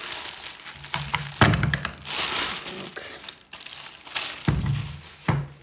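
Thin clear plastic bag crinkling and crackling as it is pulled off an aluminium mini milling cross-slide table, with a few dull bumps as the metal table is handled.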